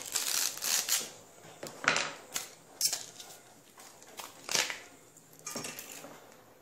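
Outer fibrous layers being stripped off a banana stem by hand and knife: several short, crisp tearing and scraping strokes, spread unevenly.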